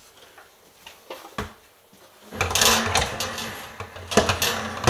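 Wooden loft ladder being hooked onto its hatch: a few light knocks of handling, then from about halfway a couple of seconds of metal hinge brackets scraping and rattling against the hatch brackets, with sharp metal clicks near the end as they seat.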